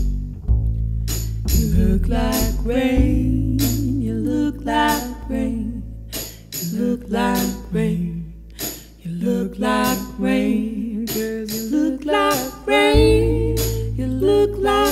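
A band playing a slow song: grand piano, low bass notes and tambourine hits under a melody line that bends in pitch. The bass drops out for several seconds in the middle and comes back near the end.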